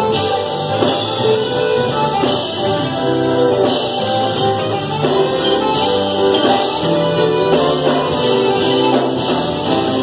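Live smooth gospel-jazz band: a saxophone playing a sustained melody over keyboard and bass accompaniment.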